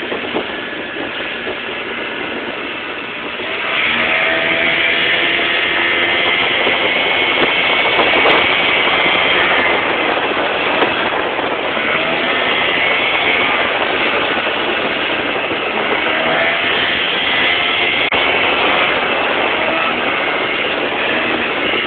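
Jon boat's motor running under way, getting louder about three and a half seconds in, with its pitch wavering up and down.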